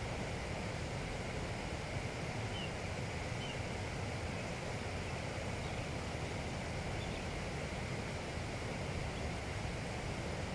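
Steady outdoor background noise, with two or three faint short chirps about three seconds in.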